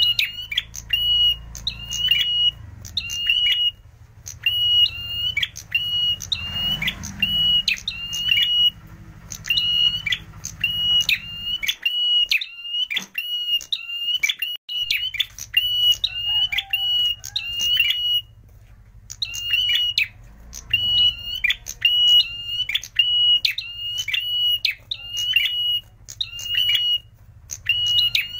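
Caged tailorbird (prenjak merah) calling: a long run of sharp, high chip notes, about two a second, with brief pauses.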